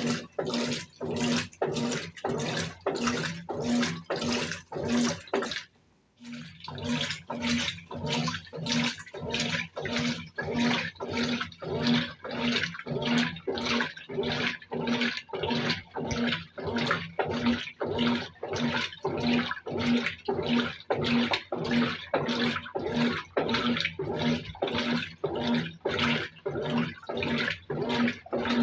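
Brastemp BWK17 top-loading washing machine agitating a load of clothes in water: rhythmic sloshing at about two strokes a second over a pulsing motor hum, with one brief pause about six seconds in.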